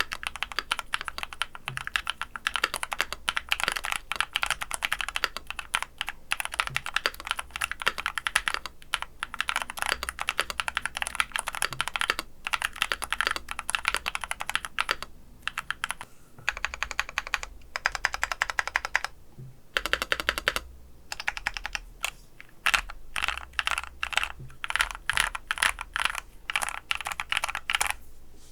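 Mechanical keyboard fitted with PKKeys Misu long-pole linear switches being typed on quickly, a dense run of keystrokes broken by a few short pauses.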